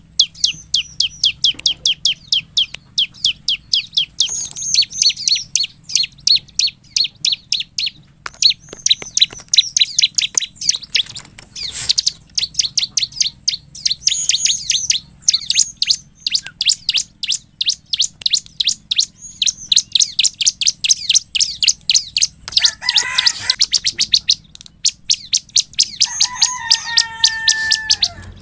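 Bar-winged prinia (ciblek) singing energetically: long runs of rapid, high, sharp notes, several a second, in phrases a few seconds long with short breaks. Near the end a few lower, longer whistled notes come in.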